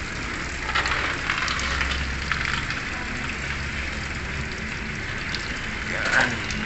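Coolant draining from a car radiator in streams, a steady splashing and spattering as it falls. There are a few light clicks in the first couple of seconds and a brief louder sound just after six seconds.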